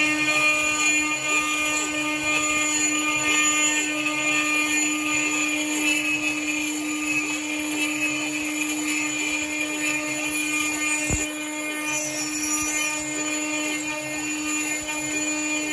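Milling machine spindle running steadily while an end mill cuts a 17 mm hole in aluminium structural profile, with a cutting hiss that is heavier in the first few seconds. A single sharp click about eleven seconds in.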